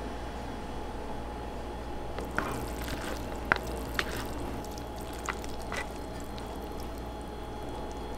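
Chopsticks working saucy instant ramen noodles in a bowl: a handful of short wet clicks and smacks, spread between about two and six seconds in, over a steady room hum.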